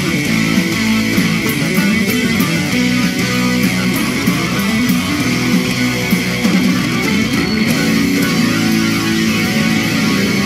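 A TV show's instrumental theme music, led by guitar with bass and drums keeping a steady beat.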